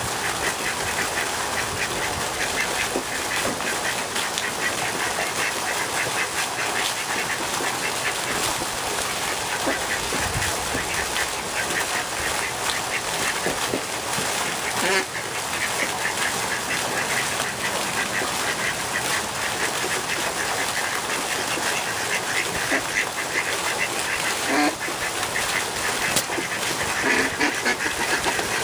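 Fountain jet splashing steadily into a pond, with ducks quacking on and off over it.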